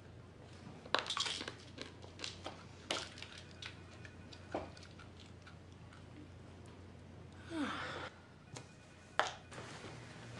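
Quiet room tone with a low steady hum and scattered small clicks and taps, and a short falling sound about three-quarters of the way through.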